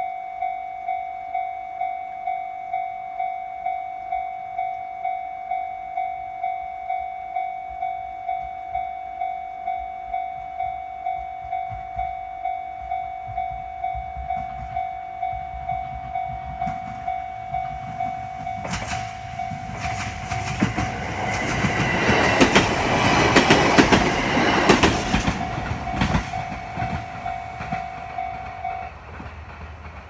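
Japanese railway level-crossing warning bell dinging in a steady, even rhythm while a train runs over the crossing, its wheels clattering over the rail joints. The train builds up past the two-thirds mark, is loudest shortly after, then fades. The bell stops shortly before the end as the crossing clears.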